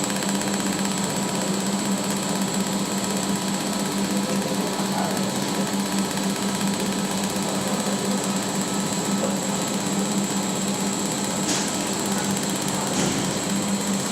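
Laser welding machine running with a steady, rapid mechanical buzz and a constant hum.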